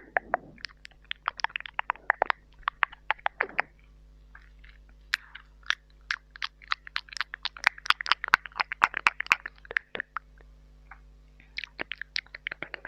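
Wet mouth clicks, smacks and pops made right against a mini microphone, an irregular patter of sharp clicks with short hissy patches, in imitation of eating.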